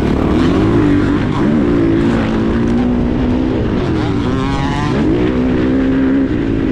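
KTM 450 SX-F's single-cylinder four-stroke engine under way at race pace, its revs rising and falling repeatedly through throttle and gear changes, with a long rising rev about four seconds in that then drops away.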